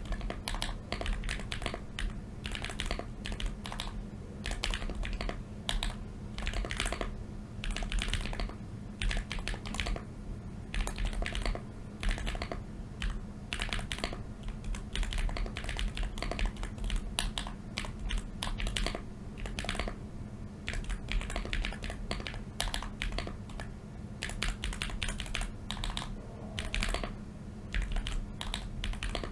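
Typing on a Contra 40 ortholinear 40% keyboard fitted with lubed Kailh Polia tactile switches: a continuous, irregular run of keystroke clacks with brief pauses.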